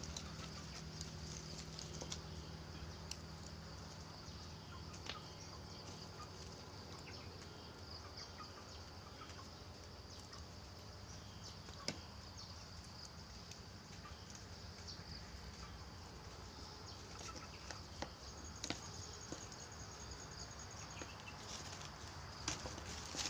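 Scattered small clicks and snaps of fruit being pulled off the branch and its thin rind cracked and peeled by hand, over a faint steady outdoor hiss.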